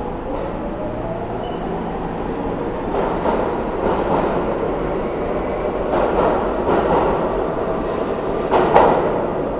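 New York City subway R local train pulling out of the station past the platform: a whine rises in pitch at the start, then the steady rumble of the wheels with a series of clacks over the rail joints, the loudest near the end as the last car passes.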